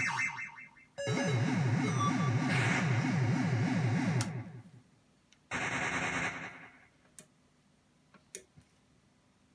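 Hand-built electronic sound-effects box playing synthesized lickshot effects. First comes a fast pulsing run of falling sweeps that fades out over about four seconds. About five and a half seconds in there is a short hissing noise burst, then a couple of faint clicks.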